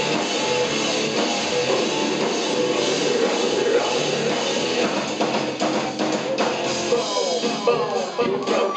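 A rock band plays live and loud, with drum kit and vocals, recorded from within the audience. The drum hits come through more sharply from about five seconds in.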